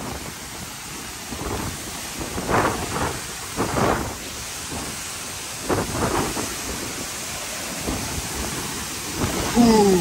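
Nung Nung waterfall falling with force close by: a steady rush of crashing water and spray, with several rumbling gusts of wind and spray hitting the microphone.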